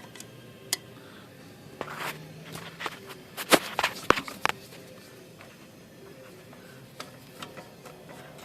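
Small metal clicks, knocks and scrapes of a screwdriver and parts being worked on a Royal 10 typewriter, with a burst of sharp clicks and clanks a few seconds in and a few lighter ticks near the end.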